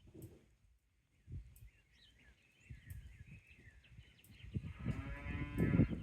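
Cattle mooing: one long call beginning about four and a half seconds in and still going at the end.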